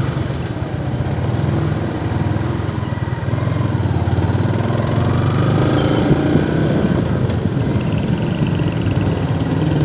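Yamaha motorcycle's small engine running steadily at low speed, heard from the rider's seat.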